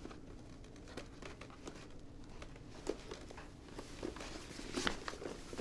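Faint handling sounds of a respirator shroud: soft fabric rustling and scattered small clicks as hands press its rubber gasket into the helmet's channel and smooth the cloth, with a couple of slightly louder taps about three and five seconds in.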